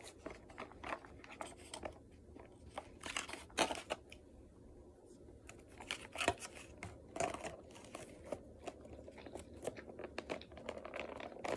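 A clear plastic tub of mini peanut butter cups being handled: scattered light clicks, taps and crinkles of plastic as the candies are picked out, with quiet stretches between.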